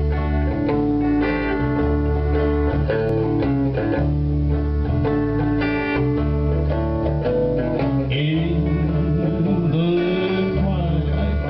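A small live band plays a slow country ballad: acoustic guitar strumming, an electric bass line underneath and a second guitar.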